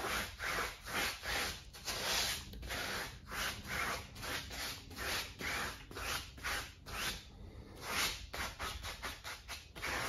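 Large round chalk brush scrubbing acrylic paint back and forth across a primed stretched canvas, in quick repeated strokes of about two or three a second.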